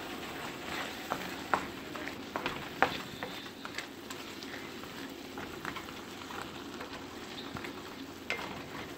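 Spinach, tomato and onion filling sizzling steadily in oil in a pan on the stove, with scattered clicks of a utensil against the pan as it is stirred. The vegetables are softened and cooked down to a purée-like mix, ready to come off the heat.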